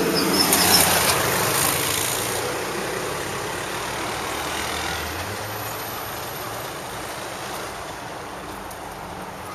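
Street traffic noise: a vehicle passing close, loudest in the first two seconds, then fading to a steady, lower traffic hum.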